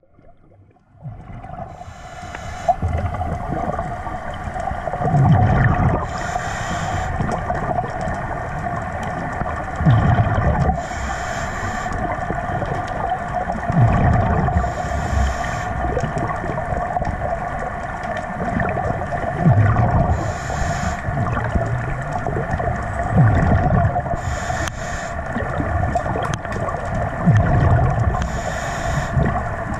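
Underwater sound of a swimmer's breathing, repeating about every four to five seconds: a low rumbling surge of exhaled bubbles, then a hiss about a second later, over a steady hum.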